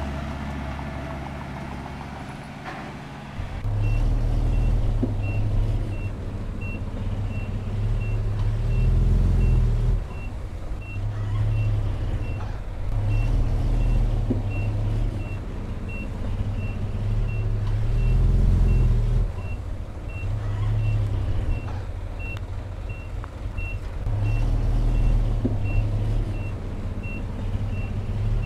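Heavy diesel construction machine working under load, its engine swelling and easing every few seconds. About three and a half seconds in it starts reversing and its backup alarm beeps steadily, about two beeps a second.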